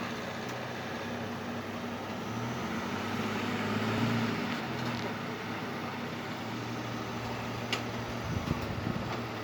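Vehicle engine running with a steady low hum that swells briefly in the middle, then a few low thumps and clicks near the end.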